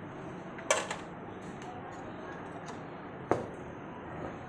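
Two short, sharp knocks about two and a half seconds apart over a steady faint background hiss.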